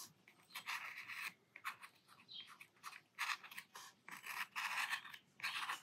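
Metal dip-pen nib scratching across watercolour paper in quick, short, faint strokes, two or three a second, as fine ink lines are drawn.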